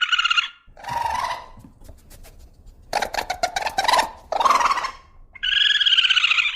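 Animal calls: a series of about five short, pulsing cries, with a run of sharp clicks in the middle.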